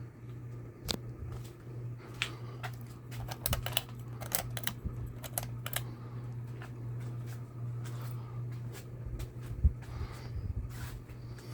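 Palm Air 52-inch ceiling fan running, its motor giving a steady low hum, with irregular sharp clicks scattered through and a single louder thump near the end.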